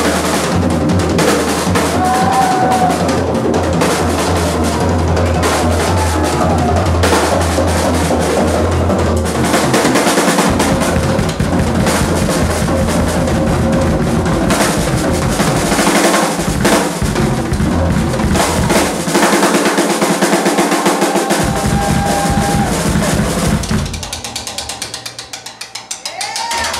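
Live drum kit solo: dense fills across snare, toms and cymbals, with rapid, heavy bass drum for about the first ten seconds. Near the end the playing drops to quieter, lighter strokes, then comes back in loud just before the end.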